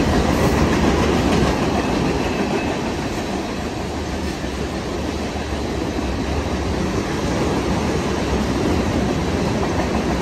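Union Pacific freight train passing close by: the deep diesel locomotive rumble eases over the first couple of seconds, then a string of tank cars rolls past with steady wheel noise and clatter on the rails.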